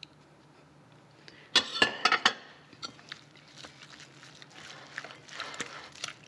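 Metal utensil knocking against a glass mixing bowl: four sharp clinks in quick succession about a second and a half in, then softer stirring and scraping as a raw egg is mixed into a thick spinach and feta filling.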